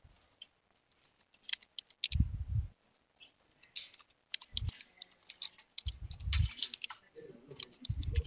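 Typing on a computer keyboard: irregular keystroke clicks, with a few heavier low thumps among them, as an account name and password are entered.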